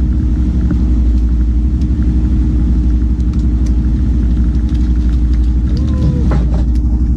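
Fishing boat's engine running steadily, a loud, even low hum.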